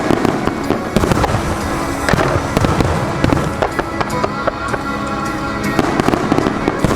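A starmine fireworks barrage: many shells bursting in quick succession with crackling, set against show music played over loudspeakers. The bursts are densest about a second in, again around two to three seconds in, and near the end.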